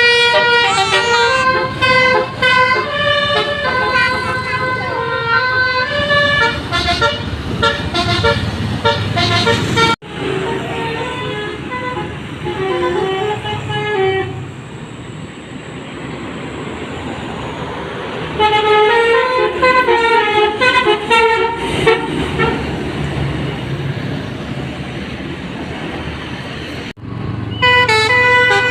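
Basuri 'telolet' musical horns on heavy vehicles playing fast stepped multi-note tunes, with one horn answering another. The horns break off for a while in the middle, leaving the engine and road noise. They then start up again in short melodic bursts and play on near the end.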